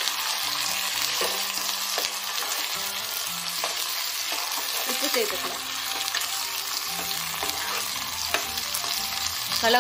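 Chopped vegetables sizzling in hot oil in a nonstick kadai, stirred with a metal ladle that scrapes and taps against the pan now and then.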